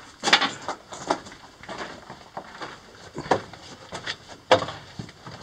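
Footsteps on loose rock and gravel between mine rail ties, at an uneven walking pace, with the sharpest steps about a third of a second in and near four and a half seconds.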